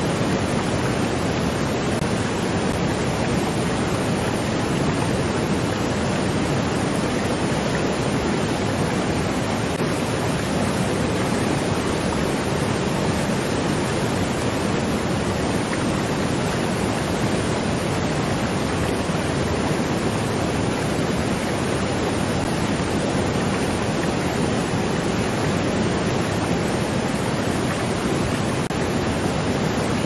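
Waterfall: a steady, unbroken rush of falling water, fullest in the low-middle range, with no let-up or change.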